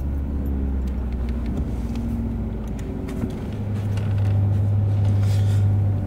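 A vehicle engine idling with a steady low hum; about three and a half seconds in its pitch steps up and it gets louder. Light clicks and rustles sound over it.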